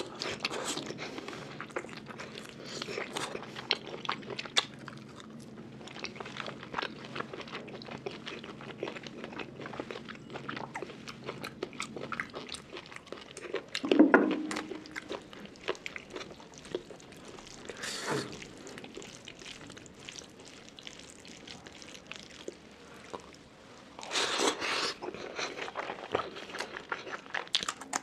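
Close-miked chewing and crunching of pork belly, with many small crisp clicks. There is a single louder knock with a short ring about halfway through, and a louder, rougher stretch a little before the end.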